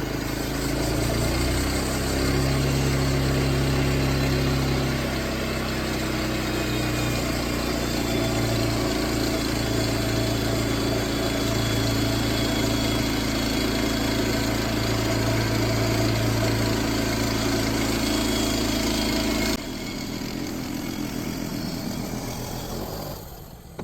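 Homemade sawmill's petrol engine running steadily while its blade cuts through a pine log. About twenty seconds in the engine's low drone stops abruptly, and the remaining noise dies away near the end.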